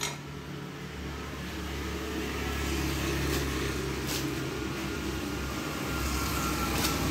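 A motor vehicle's engine running steadily nearby, growing gradually louder, with a few light clicks over it.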